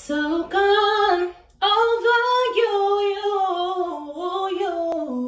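A woman singing unaccompanied: held, gliding notes in two phrases, with a brief break about a second and a half in.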